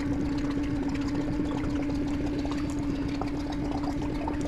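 A small motor on a boat humming steadily on one unchanging pitch, with water pouring and splashing.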